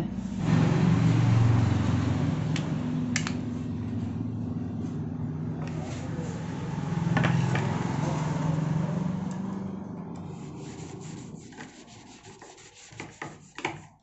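The plastic head casing of an electric immersion-rod water heater is handled and pressed shut, with plastic rubbing and scraping close to the microphone. The rubbing fades, and near the end come a few small sharp clicks as a screwdriver tightens the casing screws.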